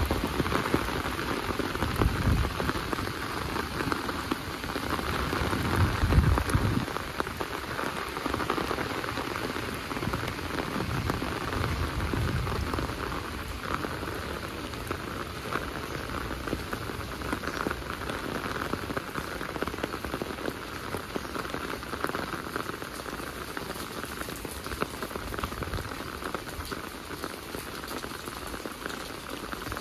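Steady rain falling and pattering on surfaces, a dense even hiss, with a few brief low rumbles in the first dozen seconds.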